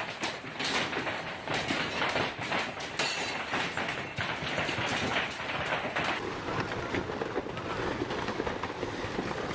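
Heavy hail pelting down: a dense, continuous clatter of rapid hailstone impacts.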